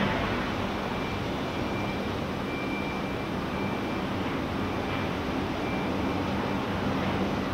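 Steady mechanical din with a low hum, and a faint high-pitched whine that comes and goes.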